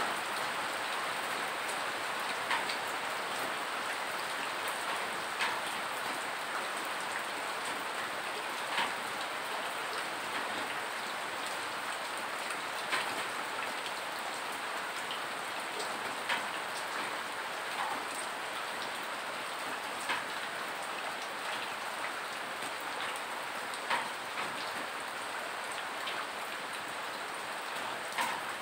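Steady rain hissing, with single loud drips striking every second or two at an irregular pace.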